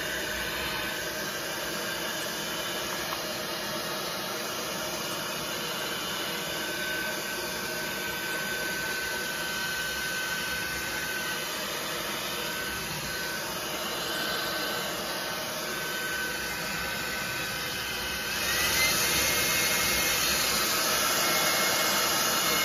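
Handheld hairdryer running steadily, blowing air with a faint whine. About eighteen seconds in it gets louder and the whine rises to a higher pitch.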